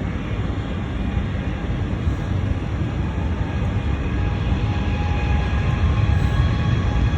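Jet airliner engines running, a steady low rumble with faint whining tones, growing a little louder near the end.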